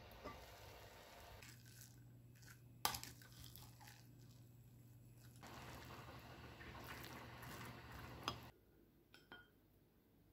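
Quiet kitchen sounds from a stainless steel pot of cooked rice and bean sprouts: a sharp clink of the pot's lid about three seconds in, then soft scraping and rustling as the rice is stirred, with a second small click near the end. A low steady hum runs under it and stops about eight seconds in.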